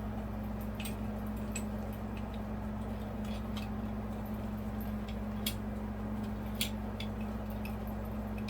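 Scattered light clicks and clinks of electrical wires and connectors being handled and pushed into a ceiling box, over a steady low hum.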